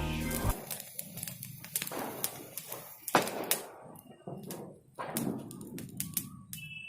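Firework crackles going off as scattered sharp pops, irregular and thinning out, with the loudest snaps a little past halfway.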